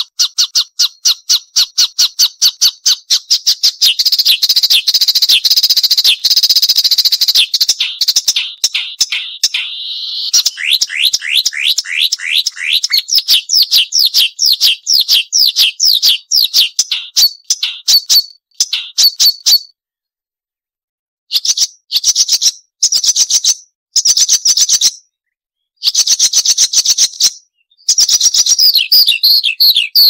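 Marsh warbler singing a fast run of sharp, high, chattering notes, several a second, with a few short silences in the second half.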